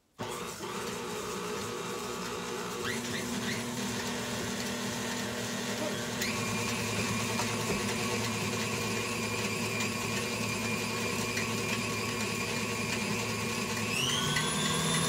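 KitchenAid stand mixer switching on and running steadily, beating sugar with a butter substitute in its steel bowl. Near the end its motor pitch rises and it gets a little louder as the speed is turned up.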